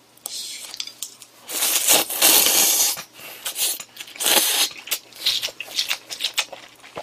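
A person slurping cold buckwheat noodles (mul makguksu) from icy broth: a long slurp between about one and a half and three seconds in, a shorter one a little after four seconds, with wet chewing and mouth clicks in between and after.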